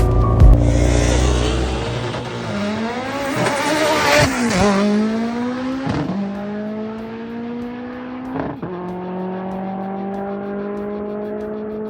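Race car engine accelerating hard through the gears, its pitch climbing steadily and dropping sharply at each upshift, three times.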